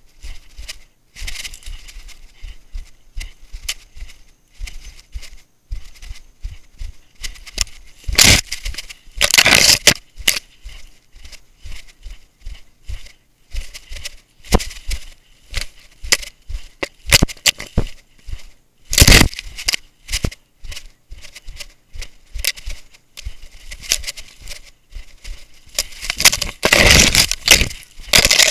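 Brush, twigs and leaf litter scraping and crackling against a camera strapped to a running dog's head, with many quick knocks as it moves. Louder rough scraping surges come about eight seconds in, again near the middle, and near the end.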